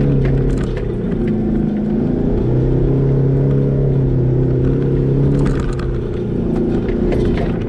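Toyota Hilux engine running as the truck drives along a rough sand track, heard from inside the cab. The engine note changes pitch a couple of times, and a few short knocks and rattles come from the truck bouncing over the track.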